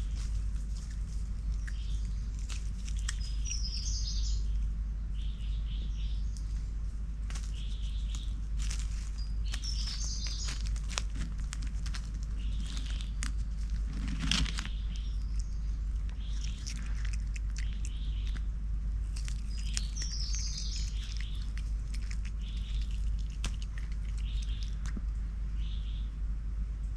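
Small forest birds calling, with short chirps repeating about once a second and a warbling phrase three times, over the crackle and rustle of dry leaf litter as a lemur moves through it close by. There is a louder scrape about 14 s in, and a steady low rumble underneath.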